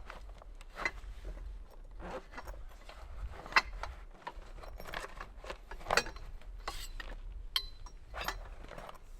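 Camping gear being handled: rustling with a string of small sharp clicks and clinks, the loudest about a third of the way in, at the middle and near the end, where one rings briefly like metal.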